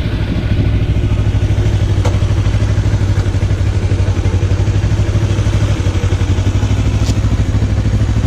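Kawasaki sport motorcycle's engine idling steadily, with a fast, even pulse.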